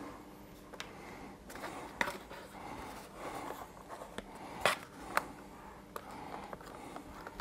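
Faint handling sounds as the microscope's plastic display screen is picked up and moved across a tabletop: soft rustling and scraping, with a handful of light clicks and taps spread through.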